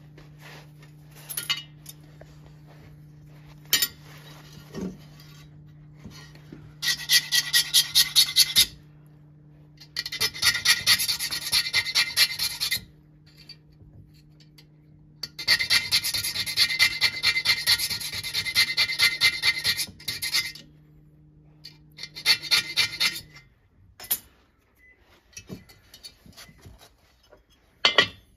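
Two-stroke piston ring end being hand-filed with a flat file to open up a ring gap that is too tight: quick back-and-forth rasping strokes, about five a second, in four runs of a few seconds each.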